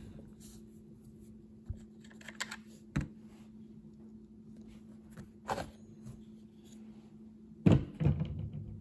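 Bar nuts being loosened and taken off a Husqvarna chainsaw's side cover with a wrench: scattered small metal clicks and knocks, then a louder clatter near the end as the side cover comes off the clutch, over a steady low hum.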